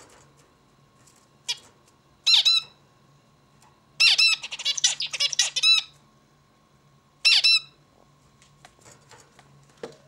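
Male zebra finch calling and singing: a short nasal call about two seconds in, a rapid two-second burst of song in the middle, then another call a little later.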